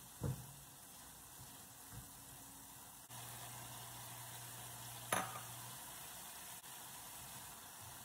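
Diced apples frying in butter, sizzling steadily in a nonstick pan as a silicone spatula stirs them, the sizzle growing louder about three seconds in. Two sharp knocks against the pan, the louder about five seconds in.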